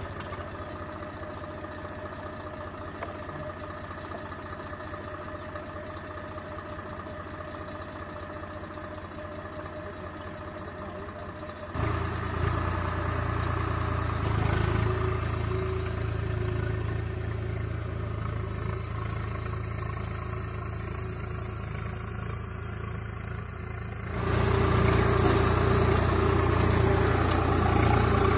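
Swaraj 744FE tractor's three-cylinder diesel engine running steadily. It turns suddenly louder about halfway through, and louder again near the end with added clatter.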